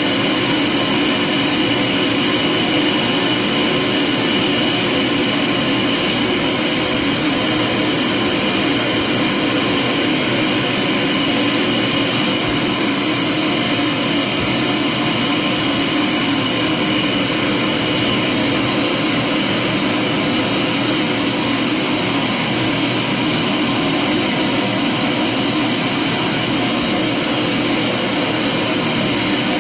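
Vacuum cleaner running steadily, a constant loud rush of air with a thin motor whine on top.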